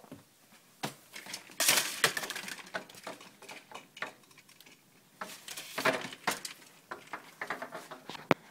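Vertical window-blind slats clattering and clicking against each other as they are pushed aside and swing back, in several short bursts, with one sharp click near the end.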